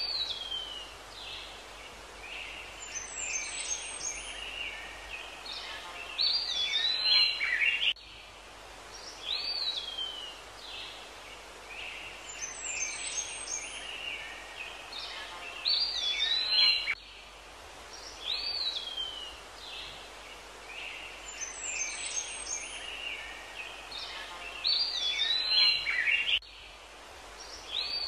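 Birdsong added as a looped soundtrack: chirps and whistled calls, including a call that falls quickly in pitch, repeating the same phrase about every nine seconds with an abrupt cut at each loop join.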